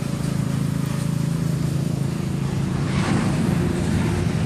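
Neighbour's petrol lawn mower engine running steadily, with a louder noisy swell about three seconds in as something passes close by.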